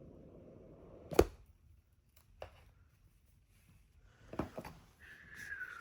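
Cardboard iPhone box being opened: a low rubbing rustle, then a sharp knock about a second in, followed by a few lighter clicks and taps. Near the end comes a thin squeak that falls in pitch.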